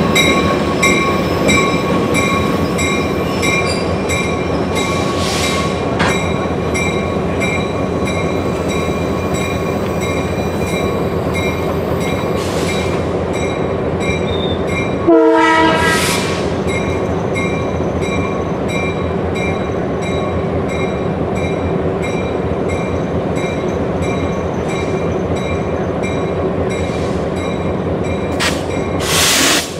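Diesel locomotive train running steadily, with a short horn blast about halfway through.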